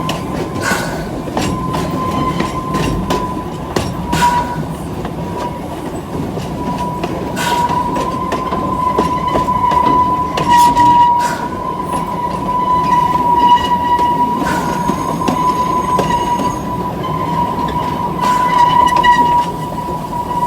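Amusement-park steam train rolling along its track, heard from the coaches: a steady high wheel squeal runs throughout over a low rumble, with a sharp click from the rail joints every three to four seconds.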